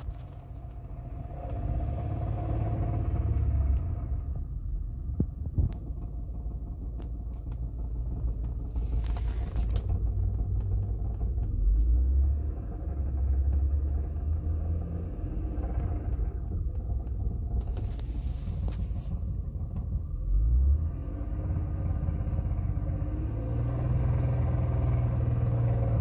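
2007 Saturn Vue's 3.5L V6 running cold in park with a rattling, clicking sound, rising a few times and revved highest near the end, which makes the rattle louder. The owner traces the rattle to a failing air box engine mount.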